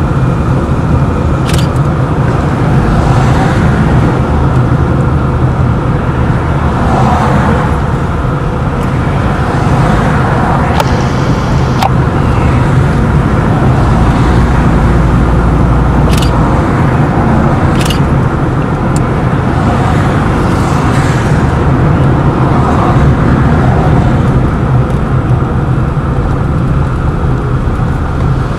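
A car driving: steady engine and road noise throughout, with a few sharp knocks at scattered moments.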